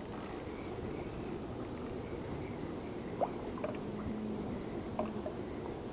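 Steady low rush of flowing water, with a few faint high ticks in the first second or so as a spinning reel is cranked to bring in a small hooked bluegill.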